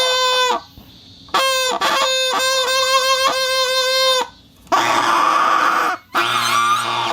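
Rubber plate whistle vibrating: a steady, reedy, buzzing tone with many overtones. It sounds briefly, breaks off, then sounds again for about three seconds. After a short pause it turns to a harsher, lower rasping buzz in two bursts near the end.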